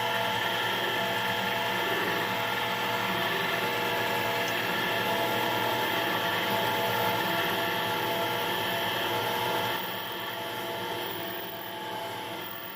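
Mini metal lathe running at moderate speed with a steady motor and gear whine while a tailstock drill bit is fed into aluminium. The sound gets a little quieter about ten seconds in.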